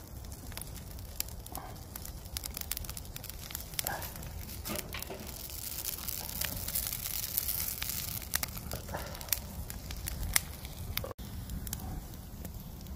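Wood fire of dry twigs and branches burning in a metal drum, crackling with many sharp irregular pops.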